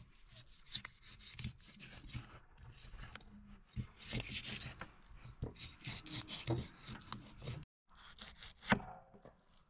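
Irregular scraping and rubbing with scattered knocks and clicks, cutting out briefly near the end.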